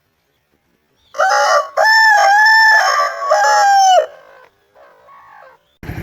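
Aseel rooster crowing once, a loud crow of about three seconds starting about a second in: a short opening note, a long held middle, then a falling end. Near the end a low, evenly pulsing noise starts abruptly.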